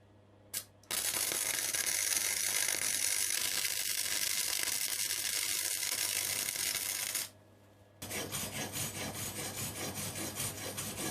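Gasless (flux-core) MIG welder arc crackling and hissing steadily for about six seconds, then cutting off. After a short pause the arc strikes again and runs on with an uneven, pulsing sputter. A steady low hum lies underneath.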